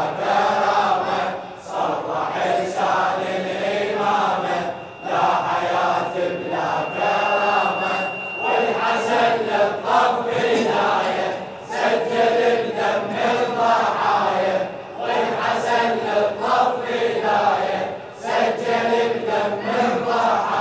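Male congregation chanting a latmiya (Shia mourning chant) refrain in unison, phrase after phrase, with rhythmic chest-beating keeping time.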